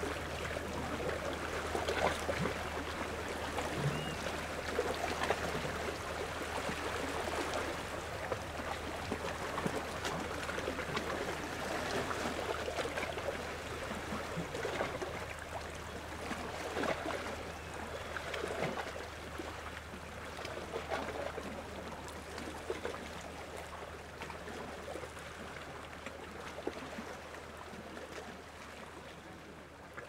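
Small ocean waves lapping and trickling at the shoreline, a soft wash coming in every few seconds and slowly growing fainter toward the end. A steady low hum runs underneath.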